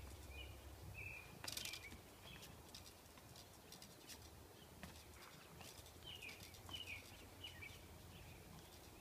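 Near silence with faint bird chirps now and then and a few light clicks.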